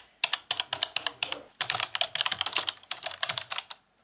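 Fast typing on a computer keyboard: rapid key clicks in bursts, with short pauses between them, stopping shortly before the end.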